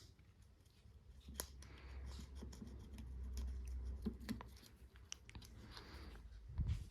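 Light clicks and scraping from small parts being handled up close, over a low rumble, with a louder low thump near the end.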